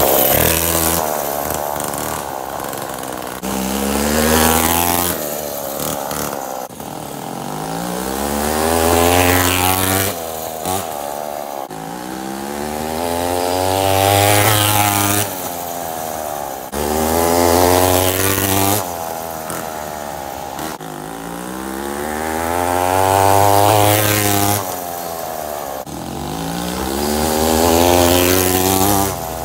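Homelite 42cc two-stroke chainsaw engine driving a homemade stand-up scooter, revving up and easing off over and over, its pitch climbing and falling every few seconds. The sound breaks off abruptly several times between runs.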